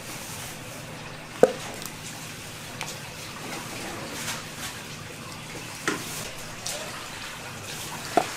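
Thick pumpkin porridge being ladled from a big steel pot into plastic containers: wet pouring and plopping, with the steel ladle knocking against the pot three times.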